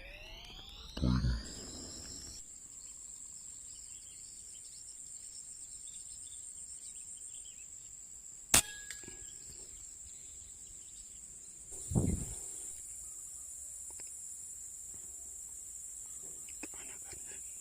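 Insects shrilling steadily at a high pitch. About halfway through, a single sharp crack from a PCP air rifle shot is the loudest sound, with two dull thumps, one about a second in and one about two-thirds through.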